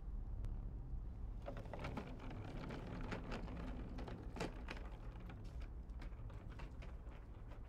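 Footsteps and the wheels of a hard-shell rolling suitcase rattling over paving, a dense run of light irregular clicks that starts about a second and a half in and stops about five seconds in, over a steady low hum.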